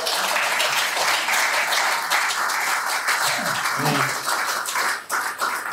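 Audience applauding a finished poem, a steady patter of many hands that begins to die away near the end.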